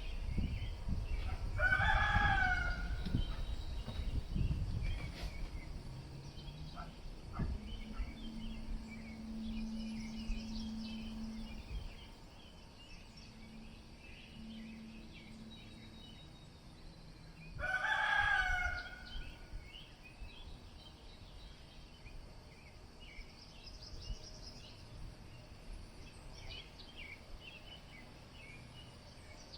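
Rooster crowing twice, about sixteen seconds apart, each crow a drawn-out call of a second or so.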